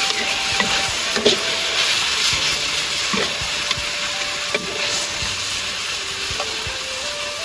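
Food sizzling steadily in a hot pan, with a cooking utensil clicking and knocking against it now and then.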